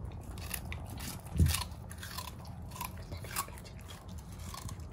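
Corgi biting and crunching a raw carrot, a string of crisp cracks every few tenths of a second, with one dull thump about a second and a half in.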